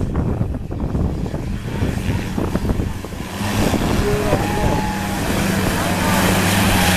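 Off-road 4x4's engine running under load, with irregular knocks and clatter for the first few seconds. From about three seconds in, a steadier, louder engine drone takes over.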